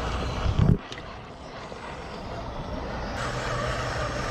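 Electric motor and gears of a 1/10-scale RC scale crawler whining as it drives through shallow muddy water. The sound cuts off abruptly just under a second in, then comes back quieter and builds.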